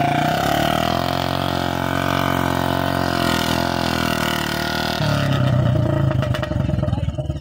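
Royal Enfield Classic 350's single-cylinder engine running under throttle as the bike is worked through thick mud; the engine speed rises about a second in, holds, and drops back about five seconds in.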